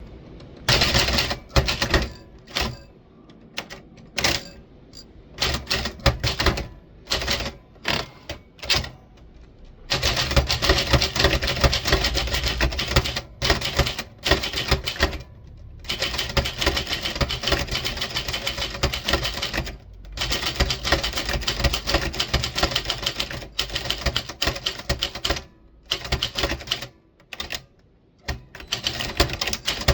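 Typewriter keys being struck: short bursts of strokes with gaps at first, then fast, near-continuous typing from about ten seconds in, broken by a few short pauses.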